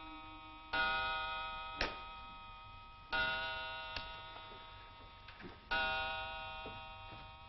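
A clock striking the hour with a ringing bell-like tone: three slow strokes about two and a half seconds apart, each fading away before the next, the clock's hands standing at twelve. A few sharp clicks sound between the strokes.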